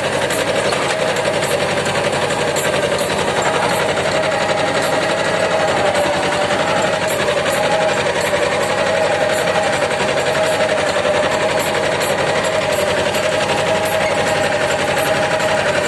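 Mahindra Jivo 245 DI 4WD mini tractor's two-cylinder diesel engine running steadily while ploughing, with a fast, even clatter.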